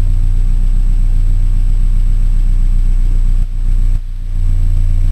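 Mercedes-Benz 190E engine idling with a weird exhaust sound, a steady low rumble with rapid pulsing that can be heard about 15 feet away; the owner suspects a broken exhaust. The level dips briefly twice, about three and a half and four seconds in.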